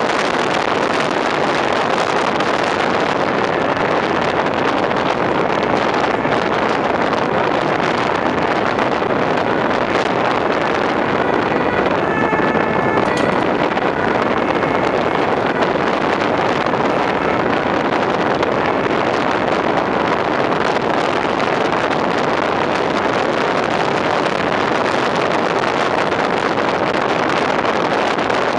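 Fire pump-tanker truck driving through town, heard from outside the cab: steady rushing wind on the microphone over the truck's engine and road noise. A few faint short tones come through about halfway.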